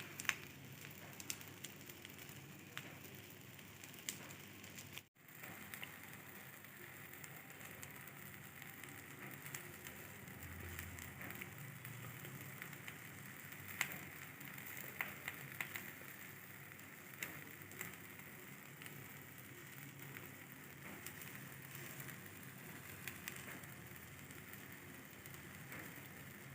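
Egg omelette frying in oil on a hot pan: a faint, steady sizzle with scattered crackles. The sound cuts out for a moment about five seconds in.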